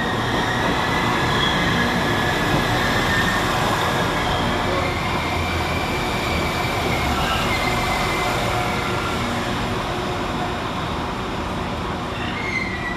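Northern Class 195 diesel multiple unit running into the platform, a steady engine and wheel rumble with a high squeal as it slows that fades out about halfway through.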